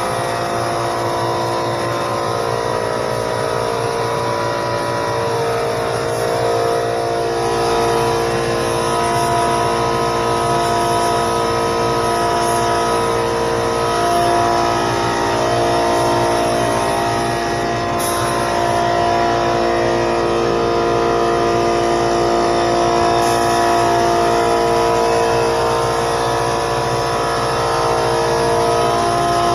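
Small 21-gallon air compressor running steadily: a continuous mechanical drone of several steady tones over a hiss.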